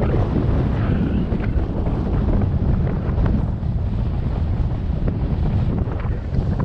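Wind buffeting the microphone of a camera on an open chairlift, a steady low rumble.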